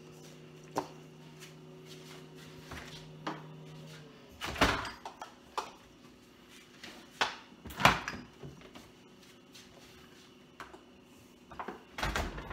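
Refrigerator door pulled open with a loud knock, a bowl set down on a shelf with a couple of sharper knocks, and the door pushed shut with thumps near the end, over a faint low hum that stops about four seconds in.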